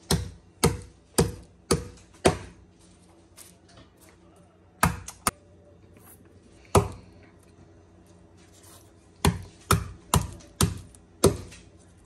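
Wooden meat mallet smashing garlic cloves on a bamboo cutting board: a run of five sharp knocks about two a second, a few more between five and seven seconds in, and another run of five near the end.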